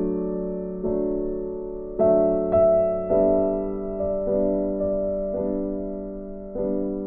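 Background music of slow piano chords, each struck and left to fade, with a new chord about once a second.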